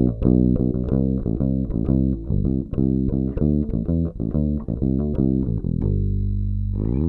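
Warwick Rockbass Streamer Standard 5-string electric bass played fingerstyle on its bridge pickup alone: a quick run of plucked notes, then one low note held and ringing for about a second before the playing picks up again near the end.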